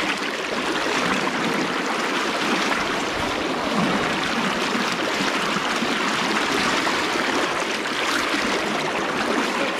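Fast river current rushing steadily, white water churning over rocks close by.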